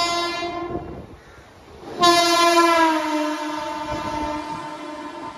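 A Mumbai suburban local electric train sounds its horn twice as it passes along the platform at speed. The first blast cuts off about a second in. The second starts about two seconds in, drops a little in pitch as the train goes by, and fades away.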